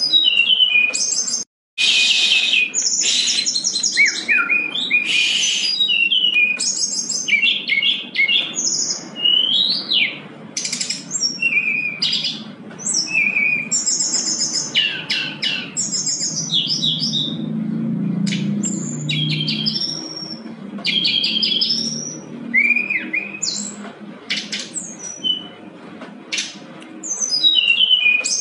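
Brown-chested jungle flycatcher (sikatan rimba dada coklat) singing a long, varied song of rapid trills, chirps and gliding whistles with short breaks, full of learned phrases from other birds. The song cuts out for a moment about a second and a half in.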